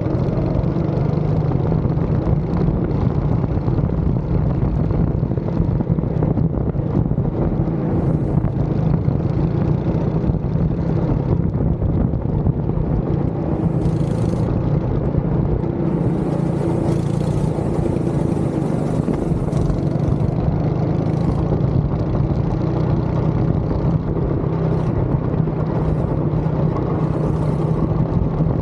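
Go-kart engine heard from the driver's seat, running hard and steadily through the laps. Several short bursts of hiss rise above it.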